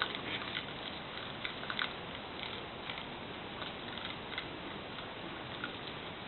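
Raccoons eating dog food: irregular small crunches and clicks over a steady hiss.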